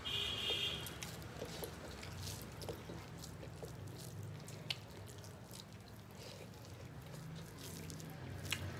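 Rice and curry being mashed and mixed by hand on brass plates: soft wet squishing with small scattered clicks and crackles. A sharper click comes about halfway through and another near the end.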